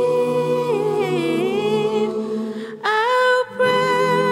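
A cappella hymn singing, slow held notes with gentle pitch changes, breaking off briefly for a breath about three seconds in.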